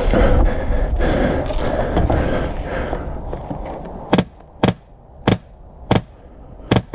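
A rustling noise, then five sharp single shots from an HPA airsoft rifle, about half a second to a second apart, starting about four seconds in.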